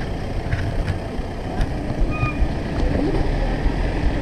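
Steady rumble of wind on the bicycle camera's microphone mixed with traffic and tyres on a wet street, with a few faint clicks.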